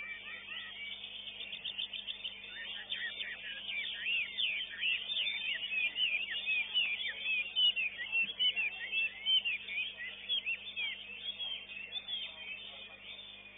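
Caged contest songbird singing a fast, unbroken string of high chirps and quick slurred whistles, building to its loudest in the middle and easing off near the end.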